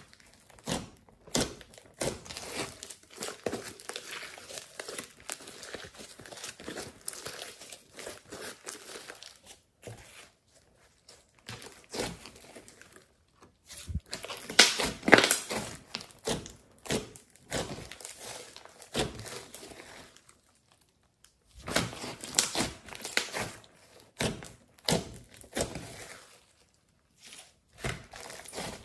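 Thick clay slime being squished, pressed and pulled apart by hand, giving off irregular sticky crackles and pops. The bursts come in busy stretches with short quiet pauses, loudest around the middle and again near the end.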